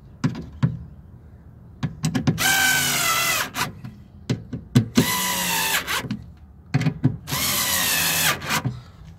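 Red cordless electric screwdriver driving home the bolts that mount the window regulator and its motor: two whirring runs of about a second each, a few seconds apart, with short clicks and knocks in between.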